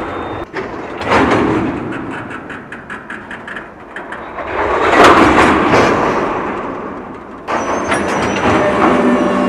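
Slack running through the couplers of a slowly moving train of tank cars: a quick run of clanks passing along the cars, then a heavy bang about five seconds in that rumbles away, and near the end steady rolling noise with a faint squeal.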